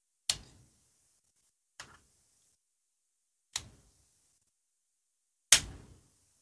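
AirPods (2nd generation) charging case lid being flipped open and snapped shut: four sharp clicks a little under two seconds apart, the last one the loudest.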